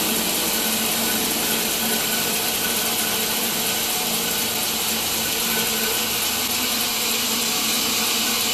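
Grizzly band saw running steadily at speed, a constant whirring machine hum.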